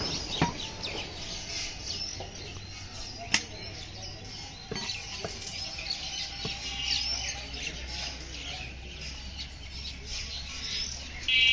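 Heavy butcher's knife chopping beef on a wooden log block: a few sharp strikes, one of them loud about three seconds in, between stretches of slicing. Birds chirp throughout, and a brief loud high-pitched call sounds near the end.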